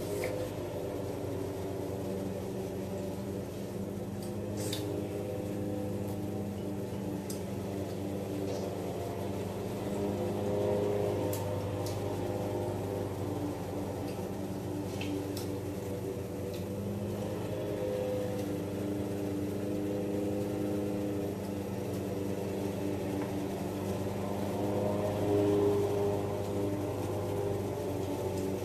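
A steady mechanical hum with several low held tones, with a few faint light clicks of a spoon against a plastic plate.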